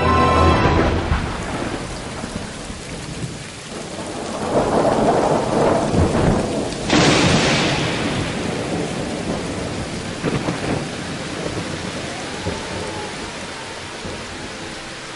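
Steady heavy rain with rolling thunder: a long rumble builds, then a sharp thunderclap about seven seconds in, followed by a weaker rumble.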